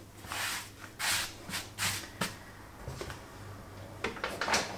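Hands unfolding and smoothing floured pastry dough on a marble benchtop, making a few soft brushing rustles.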